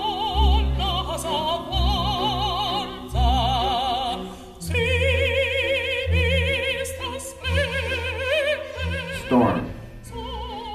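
Music from a film score: a high operatic-style voice holds long notes with wide vibrato over deep, pulsing bass notes. About nine seconds in, a quick downward swoop in pitch cuts across it.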